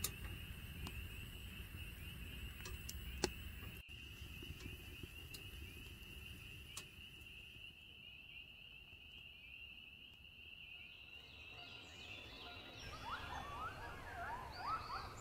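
Distant chorus of spring peepers: a steady, fast high peeping. A few sharp crackles from the wood-stove fire come in the first seconds, the loudest about three seconds in. Near the end the peeping gives way to birds chirping and singing.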